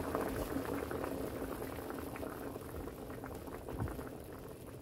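A pot of ghormeh sabzi stew, meat, herbs and beans with freshly added boiling water, bubbling hard with many small bubble pops, the bubbling slowly easing.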